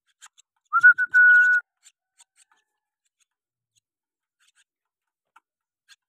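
A short whistle about a second in: a quick rising note, then one held steady note lasting about half a second.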